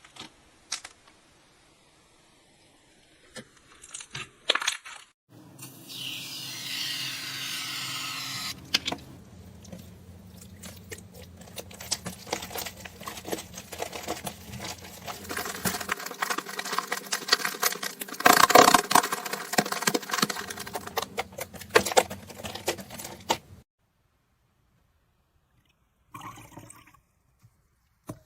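Slime being squeezed and pressed by hands: a few sharp clicks, then a long run of dense crackling and popping typical of crunchy slime, loudest about two-thirds through, followed by a pause and a few short crackles near the end.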